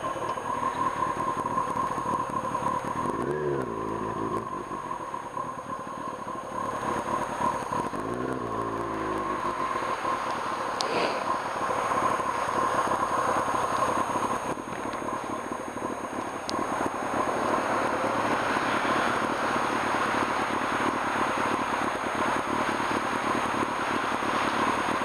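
Kawasaki Ninja ZX-6R's inline-four engine being ridden, its note rising and falling a couple of times in the first ten seconds, under a steady rush of wind and road noise.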